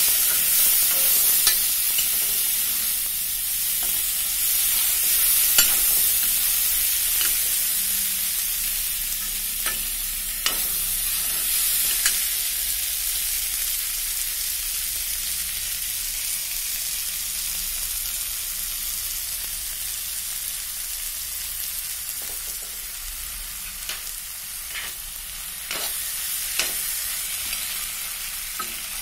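Ridge gourd flower buds sizzling in oil in a metal kadhai while a spatula stirs them, with occasional sharp clicks and scrapes of the spatula against the pan. The sizzle gradually quietens.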